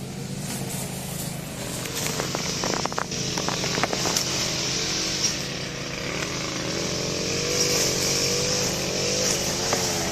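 A motor vehicle engine running, its pitch wavering slowly over a steady low hum, with a few sharp clicks about two to four seconds in.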